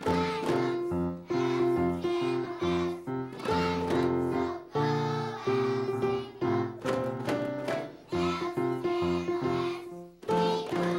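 Group of young children singing a song together to musical accompaniment, in steady phrases with short breaks.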